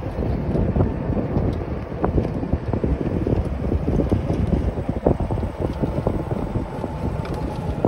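Wind buffeting the microphone of a phone carried in a moving golf cart, a ragged gusty rumble.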